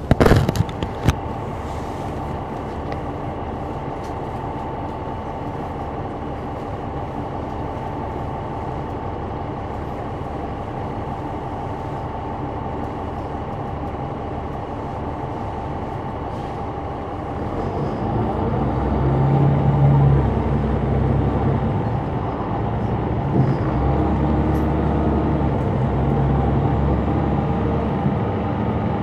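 Caterpillar C9 ACERT diesel engine of a 2004 Neoplan AN459 articulated bus, heard from the back of the bus: running steadily at idle with a constant whine, after a few sharp clatters right at the start. About 17 seconds in it grows louder as it pulls under load, eases briefly about 21 seconds in, then keeps running harder.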